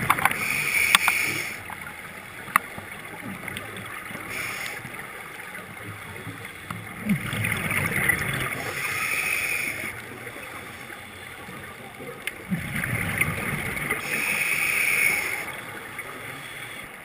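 Scuba diver breathing through a regulator underwater: three bubbling exhalations, each a few seconds long, about every five to six seconds, with a quieter hiss between them.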